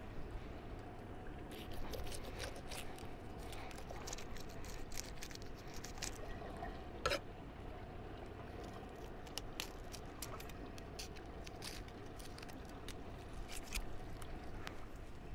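Knife cutting along a mullet snapper's heavily scaled skin and flesh: faint, scattered crackly ticks and wet squishes, with one sharper click about halfway through.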